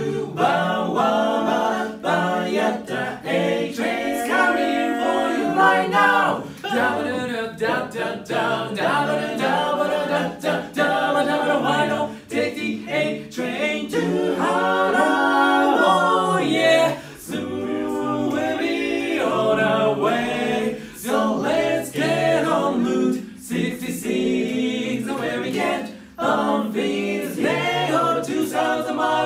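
Barbershop quartet of four male voices singing a cappella in close harmony.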